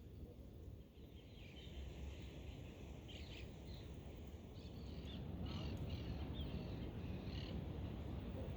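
Birds calling in a series of short, harsh calls over a steady low rumble of wind on the microphone.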